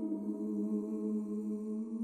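Slow background music of long held, droning tones that slide down to a lower note right at the start and then hold steady.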